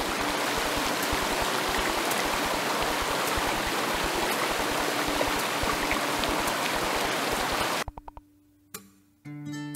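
Steady rushing water that cuts off suddenly about eight seconds in. After a second of near silence, acoustic guitar music begins just before the end.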